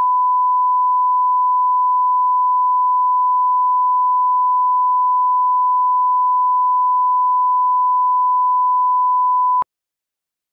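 Bars-and-tone line-up signal: a steady 1 kHz reference tone, one unbroken pure beep that cuts off abruptly about nine and a half seconds in.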